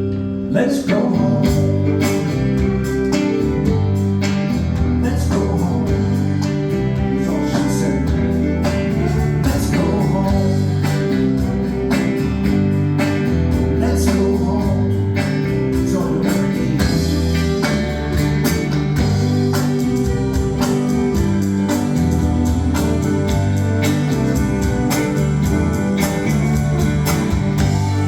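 Live band playing an instrumental stretch of the song: guitar over a bass line that steps from note to note, with a steady beat.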